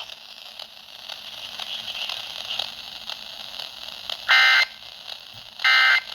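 Faint steady hiss, then two short identical squawks of Emergency Alert System SAME digital data about 1.3 s apart, the buzzy tone bursts that close an alert broadcast; their shortness fits the end-of-message code, sent three times.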